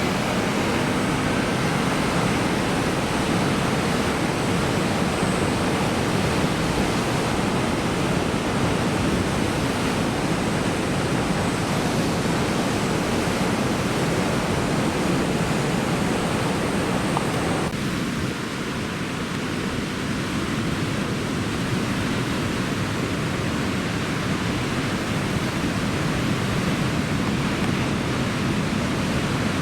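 Large typhoon swell breaking on a rocky coast: a steady, loud wash of surf noise. The tone changes abruptly about eighteen seconds in.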